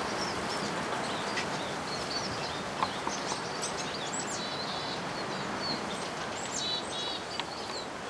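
Small birds chirping and twittering in many short high calls and trills, over a steady background hiss of outdoor noise.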